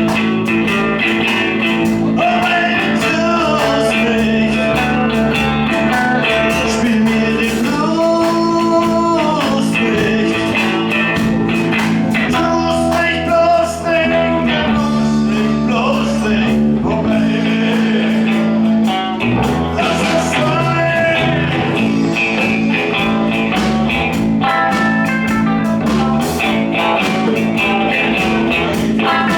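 A live band playing a blues-rock number, with guitar carrying the melody over a steady low note.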